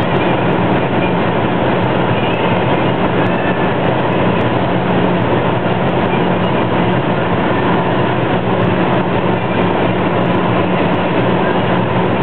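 Ford Focus Mk1 1.6 held flat out at close to its top speed of about 190 km/h, heard inside the cabin: a loud, steady drone of engine, wind and road noise whose engine note does not change.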